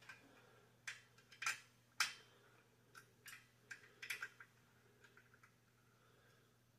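Small metal clicks and taps of a bolt and Allen wrench being worked against a steel bench frame, irregular and fairly faint, the loudest about two seconds in, as the bolt is fitted into holes that are out of alignment.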